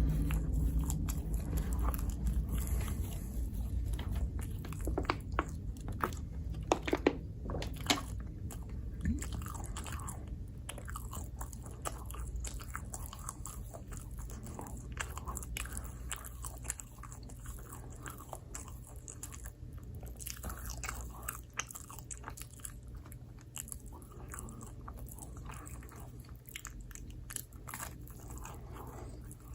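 Close-miked biting and chewing of microwaved pizza, with many irregular crisp clicks and crunches over a steady low hum.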